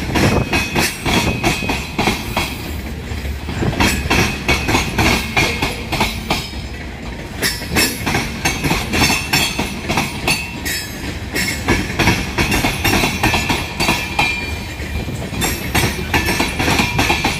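Union Pacific freight train's covered hopper cars rolling past at close range, their wheels clacking over the rail joints in a fast, irregular stream of clicks over a steady rumble, with a thin high squeal coming and going.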